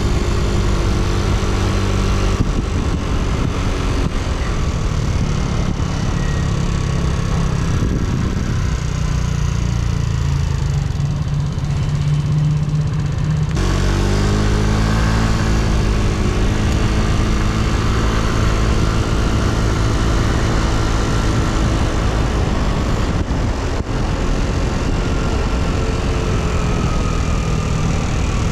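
Yamaha Cygnus X scooter's 125 cc single-cylinder four-stroke engine running under way, with wind and road noise. It settles to a steady, lower idle-like note for a few seconds in the middle, then pulls away again with a rising engine note about halfway through.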